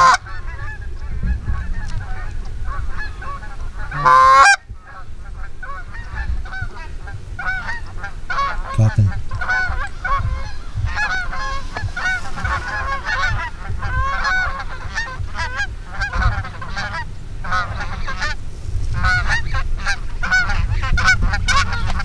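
A flock of Canada geese honking in flight, many overlapping honks throughout, with one loud, close honk about four seconds in.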